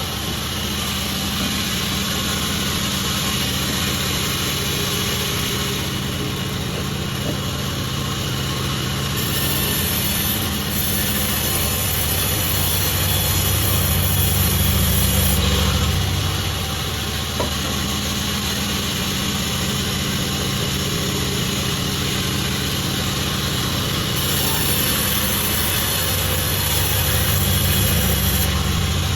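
Pandan36 sawmill running steadily with a low engine hum, getting louder for a stretch about ten seconds in and again near the end.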